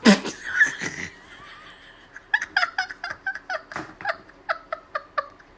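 A person laughing: a loud outburst at the start, then from about two seconds in a run of short, quick laughs, a few a second.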